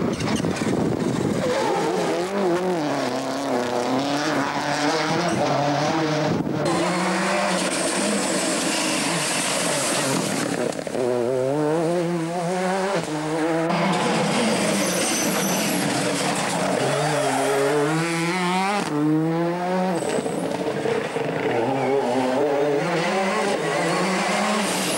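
Rally car engine at full throttle on a special stage: the turbocharged World Rally Car climbs in pitch through the gears, drops back at each shift, and comes down through the gears into corners. The sound changes abruptly several times, as one pass gives way to the next.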